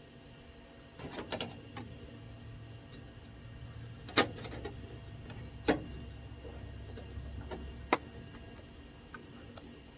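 Sharp metal knocks and clicks while a small steel patch piece is fitted behind the rusted panel: a quick cluster about a second in, then three loud single strikes spaced a second or two apart, over a low hum.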